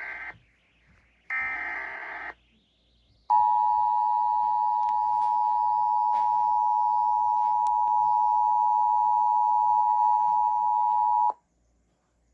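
Emergency Alert System signal for a severe thunderstorm warning: the end of one SAME digital header burst, then another one-second burst of data screech about a second in, followed from about three seconds in by the steady two-tone EAS attention signal, held for about eight seconds and cutting off sharply.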